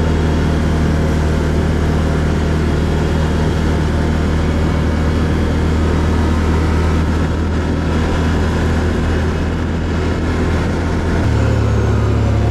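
Can-Am Outlander ATV engine running steadily under way, with a low drone and rough noise over it. About eleven seconds in, the engine note steps up in pitch.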